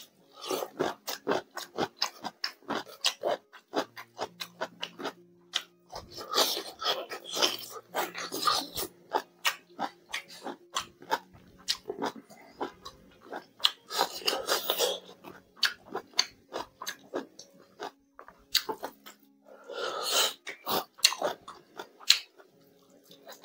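Close-miked chewing and biting of fried pork and rice: rapid wet mouth clicks and smacks, with three louder, noisier spells of chewing.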